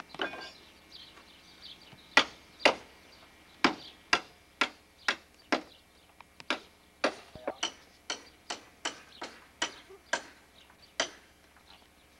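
Hammer blows on wooden wall planks: about twenty sharp knocks, roughly two a second, starting about two seconds in and going on until near the end, the first few the loudest.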